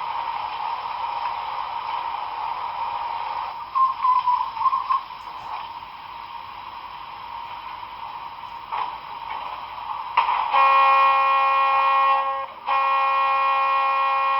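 Sound of a Broadway Limited Paragon4 sound-equipped HO model of a Milwaukee Road S-3 4-8-4 steam locomotive, playing through its small onboard speaker. A steady hiss comes first, then about ten seconds in a chime steam whistle sounds two long blasts with a brief break between them.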